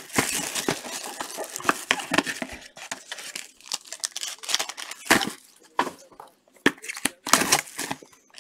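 Clear plastic wrapping on trading-card boxes crinkling and tearing as it is pulled off by hand. Dense crinkling for the first few seconds, then scattered sharp crackles.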